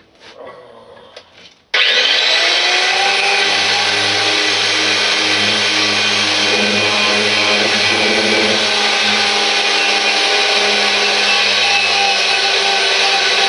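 Handheld electric power tool switched on about two seconds in, spinning up and then running steadily under load as it strips paint and rust off small steel mower brackets.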